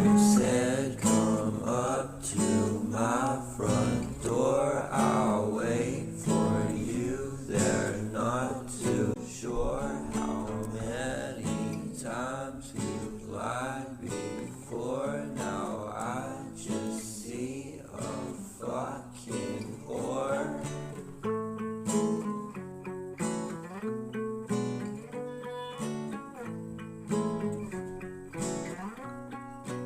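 Background music led by plucked and strummed acoustic guitar, with a bending melody line that drops out about two-thirds of the way through.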